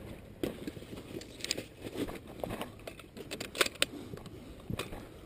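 A string of irregular light clicks and knocks, the sharpest a little past the middle.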